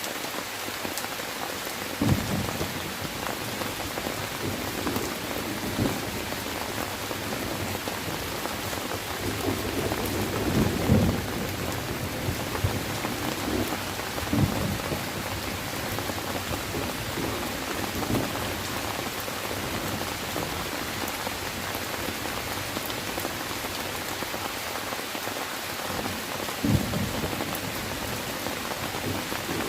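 Steady rain falling, with several short, low rumbles of thunder, the longest about ten seconds in.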